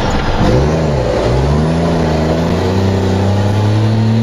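Straight-piped Cummins L10 straight-six of an ERF E10 tipper truck, heard from inside the cab, running without a silencer while pulling uphill. The revs rise and fall twice in the first second and a half, then settle into a steady pull with the pitch slowly climbing.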